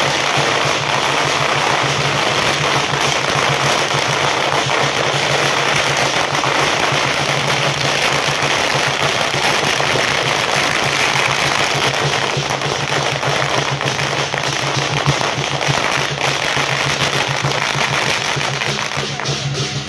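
A long string of firecrackers going off in a rapid, unbroken crackle, thinning slightly over the last several seconds.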